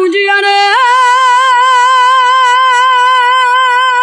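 Unaccompanied female lead vocal, isolated from a studio recording, holding one long sung note with a wide vibrato. The note steps up in pitch about a second in and is then sustained.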